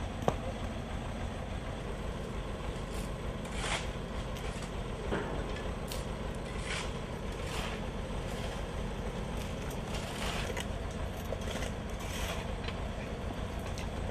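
Road-works sound: the diesel engine of heavy construction machinery running steadily, with scattered knocks and scrapes of broken asphalt and tools, one sharp knock just after the start.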